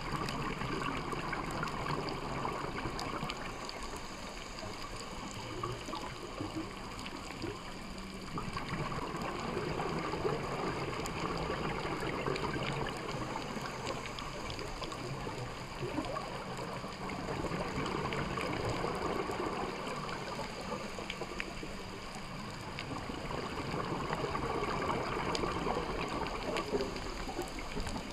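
Underwater sound of a scuba diver's regulator breathing: gurgling bursts of exhaled bubbles that swell and fade every several seconds over a steady watery wash, with faint scattered clicks.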